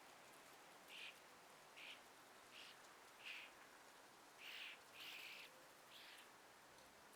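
A bird giving short, faint chirps, one after another about once a second, over a soft background hiss.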